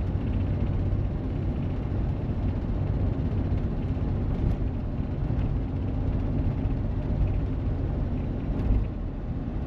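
A 2001 Chevy Astro all-wheel-drive van driving on cruise control: steady engine and road noise from its 4.3 V6, which has a misfire on one cylinder.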